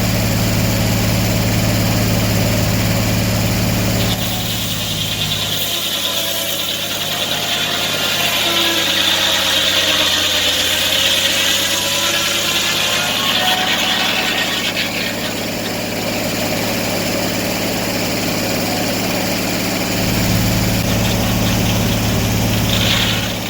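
Portable sawmill's engine running steadily. About four seconds in a higher-pitched sound joins as the blade cuts through the log, fading after about ten seconds, and the engine's full low note returns near the end.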